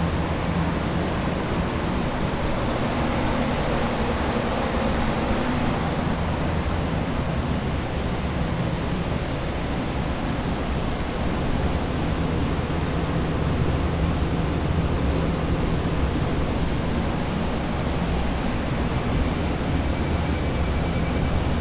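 Several centrifugal air movers (carpet-drying blowers) running together in a steady rushing whoosh with a low hum underneath, drying out a water-damaged building. A faint high thin tone comes in near the end.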